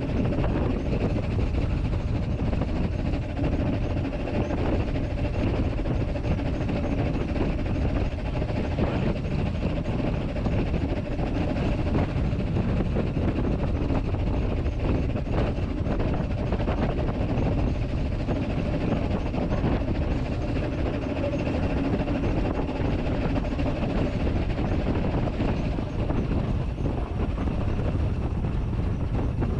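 Narrow-gauge steam locomotive No.3 'Sir Haydn' of the Talyllyn Railway, heard from its cab while running along the line. There is a steady rumble and clatter from the engine and the wheels on the track, with a steady hum running through it and scattered clicks.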